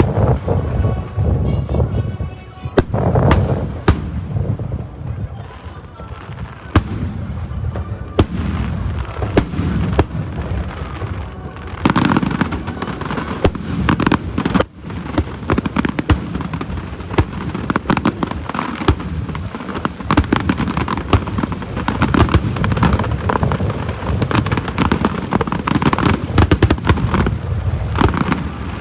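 Large aerial fireworks display: shells bursting overhead in a steady run of bangs and crackles over a low rumble, the bursts coming thicker in the second half.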